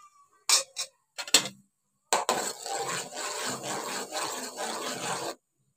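Metal spoon stirring yogurt and ghee in a metal pot, scraping against the pot: a few short clinks, then about three seconds of continuous scraping that stops abruptly.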